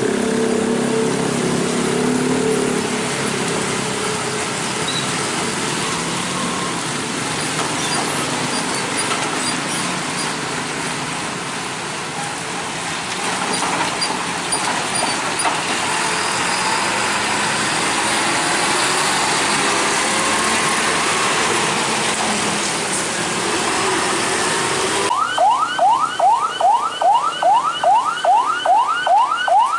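Heavy diesel box trucks passing slowly, with engines running and a steady hiss of tyres on wet pavement. About 25 seconds in the sound switches abruptly to an ambulance siren yelping, a fast rising wail repeated two to three times a second.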